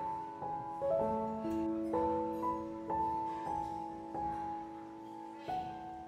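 Background music: gentle solo piano, a note or chord struck about every half second and left to ring.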